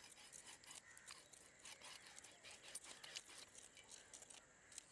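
Faint crunching and scraping of a knife cutting through a rohu fish on a wooden board, heard as a quick, irregular run of small clicks.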